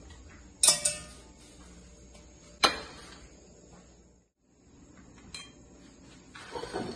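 Metal kitchenware and cutlery clinking as they are handled on a counter: a sharp clink with a short ring about a second in, a second sharp click a couple of seconds later, then softer handling noises near the end.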